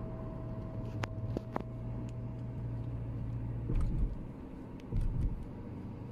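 A car on the move: a steady low engine and road rumble with a few sharp clicks about a second in and two low thumps later on.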